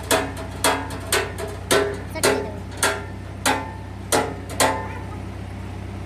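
Hammer blows on metal, about two a second with a brief ringing after each, stopping a little over four and a half seconds in, over a steady low mechanical hum.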